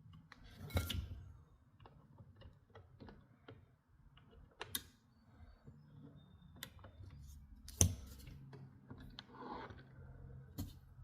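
Scattered small clicks and a few sharp knocks from handling a Remington 760 pump-action rifle during reassembly, the loudest knock about eight seconds in.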